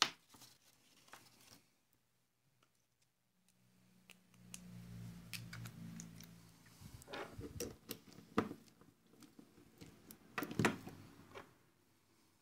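Metal tools clinking and knocking as a socket is looked out and fitted, a scatter of sharp knocks in the second half with the loudest near the end. Before them, a low steady hum for a few seconds.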